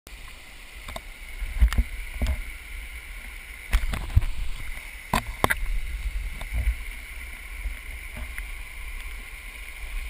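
Water rushing and splashing as a person slides down a wet rock water slide, with several sharp knocks and thuds in the first six seconds, then a steadier rush of water.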